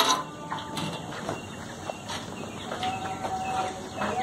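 Farmyard ambience around cattle, with scattered bird calls.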